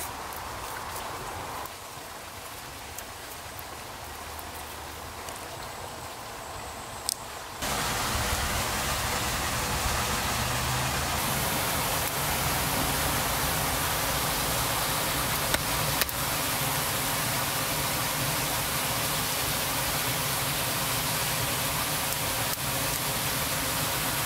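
Quiet rustling and light ticking as grass cord is wrapped around a stick. About seven and a half seconds in, this gives way to a much louder steady rushing of water with the occasional click.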